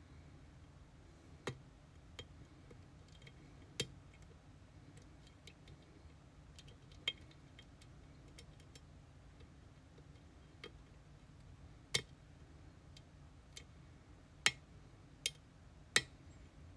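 Metal tools working an EVVA Dual dimple cylinder lock: scattered small, sharp metallic clicks at irregular intervals, a few louder ones near the end.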